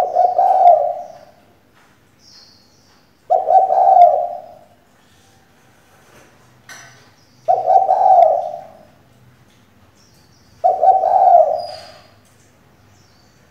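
Female spotted dove cooing: four calls about three to four seconds apart. This is the lure call a decoy hen is kept for, to stir male doves into calling.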